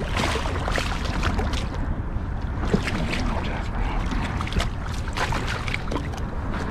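Water sloshing and splashing around a kayak, with wind rumbling on an action camera's microphone and scattered small clicks and knocks.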